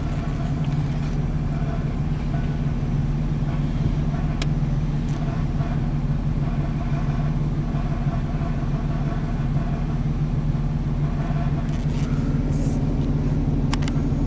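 Vehicle engine running steadily at an even, low pitch, with a couple of faint clicks.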